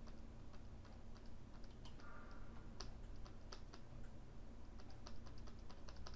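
Faint, irregular clicking of computer keyboard keys, over a low steady hum.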